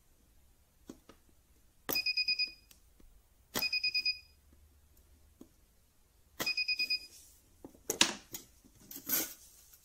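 Cheap portable spot welder with handheld pen probes firing three times, each a sharp click followed by a quick run of about six high beeps. Near the end come scraping and knocking noises as the metal strip and plate are handled.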